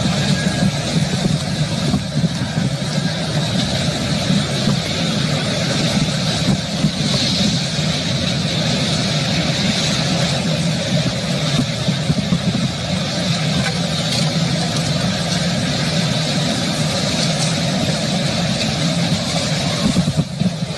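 Severe thunderstorm wind blowing hard and steadily, with blowing rain, a continuous rushing noise over a low rumble, of the kind left by a tornado or straight-line winds. It dips briefly near the end.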